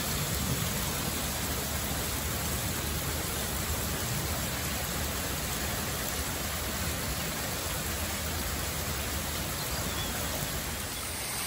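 Heavy rain falling steadily in a downpour, an even, unbroken hiss.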